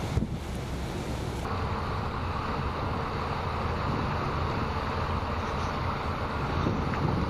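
Wind buffeting the camera microphone, a steady rumbling rush. About a second and a half in it changes abruptly to a brighter, stronger hiss.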